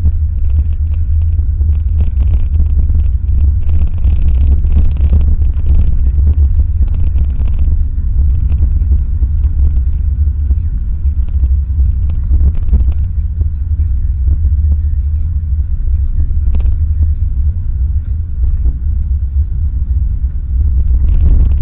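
Steady low rumble of a car driving, heard from inside the cabin: engine and road noise with no pauses.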